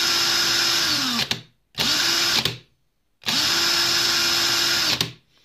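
Counterfeit DeWalt cordless drill run with no load: the motor whirs at a steady high speed and winds down a little after a second, gives a short burst around two seconds in, then spins up again and runs steadily for nearly two seconds before winding down. The quick trigger pulls make the motor draw a large starting current.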